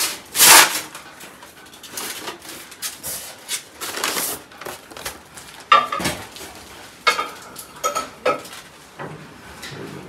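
Metal cookware and the oven's accessories clinking and clattering as they are handled: a run of sharp knocks and short, ringing metallic clinks.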